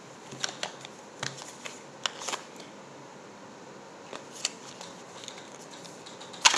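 A small deck of Kipper cards being shuffled by hand: scattered light snaps and flicks of cards, with one sharp click near the end.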